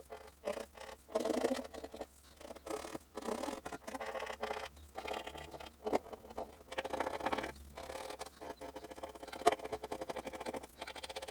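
Hands working at a bench: irregular scratching and scraping with light taps and clicks, one sharper tap about nine seconds in.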